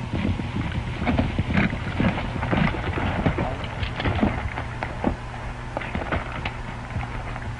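Hoofbeats of several horses on dirt, a rapid irregular clatter that is loudest in the first few seconds and thins to scattered stamps as the horses pull up. A steady low hum and hiss of an old film soundtrack run underneath.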